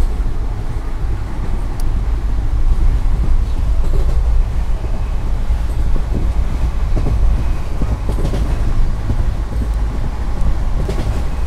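Passenger train in motion heard from inside its carriage through an open barred window: a steady rumble of the wheels on the rails and the carriage running along, with a few faint ticks and rattles over it.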